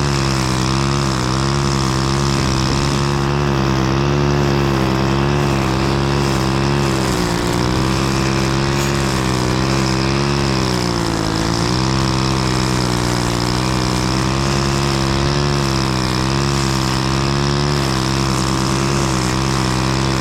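Lawn mower engine running steadily at speed, its pitch wavering slightly and dipping briefly twice.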